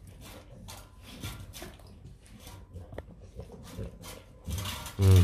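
Rottweiler eating from a stainless-steel bowl: irregular wet smacks and clicks of lapping and chewing. A short loud voice sounds near the end.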